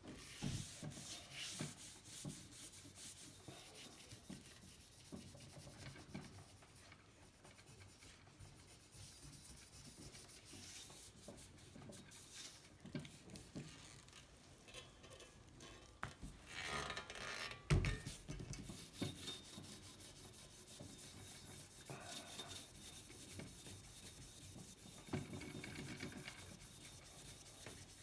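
Cloth rubbing T-Cut scratch remover into the painted steel tubing of a vintage bicycle frame by hand, an uneven scratchy rubbing as the abrasive polish works the faded paint. A single knock about two-thirds of the way through.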